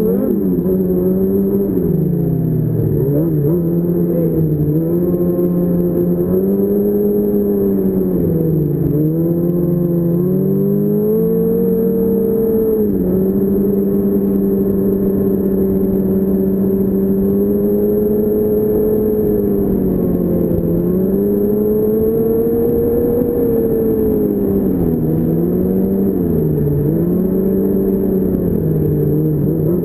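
2006 Yamaha Apex Attak snowmobile's four-stroke four-cylinder engine running under way on a trail. Its pitch dips and climbs back several times, as the throttle is eased and opened again.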